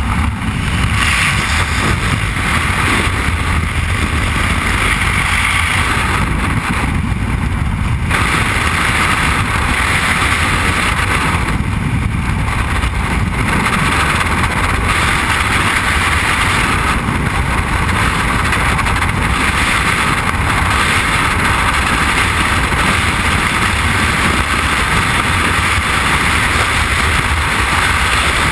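Loud, steady rush of freefall wind buffeting a helmet-mounted camera's microphone during a skydive.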